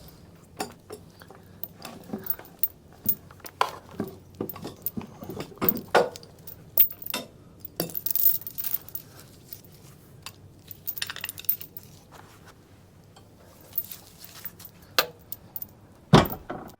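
Irregular light metallic clinks, clicks and rattles of hoist chain and hardware being handled, with a sharper knock near the end.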